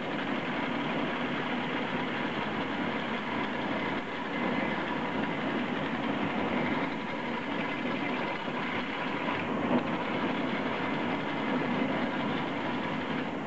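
Homemade 2x72 belt grinder, driven by a 3/4 horsepower treadmill motor, running steadily, with a steel workpiece held against the worn abrasive belt at the contact wheel.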